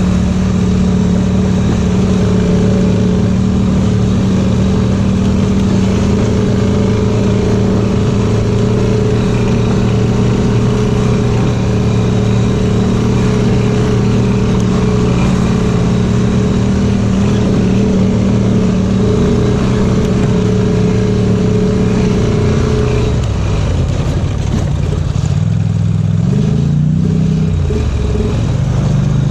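Off-road vehicle engine running under steady load on a trail, holding one even pitch for a long stretch. About six seconds from the end the engine note drops, then rises and falls again as the throttle changes.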